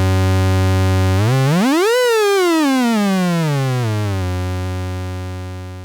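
Moog Werkstatt-01's analog oscillator sounding a low, buzzy tone rich in harmonics. About a second in, its pitch sweeps up quickly and then glides slowly back down to the original note. It holds there and fades toward the end.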